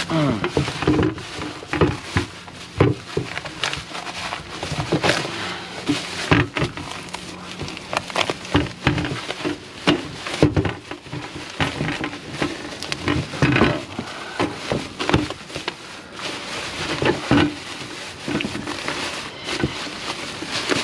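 Plastic bag and bubble wrap rustling and crackling in gloved hands as they are pulled open and unwrapped, in irregular handling bursts.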